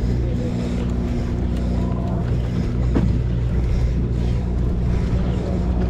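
Sportfishing boat's engine droning steadily at a constant pitch, with a single sharp knock about three seconds in.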